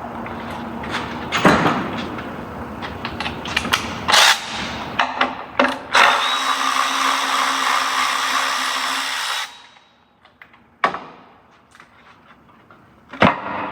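Power drill-driver with a Torx bit spinning out the fasteners of a cover, with clicks and clatter of the bit and parts. It runs steadily for a few seconds and cuts off suddenly about nine and a half seconds in, followed by a couple of knocks.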